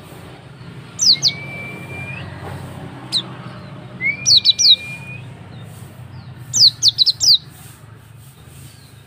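Hume's white-eye (pleci auri) calling in three bursts of quick, high, falling chirps, about a second in, about four seconds in and near the end. The first two bursts are each followed by a long, steady, thin whistled note. A low steady hum runs underneath.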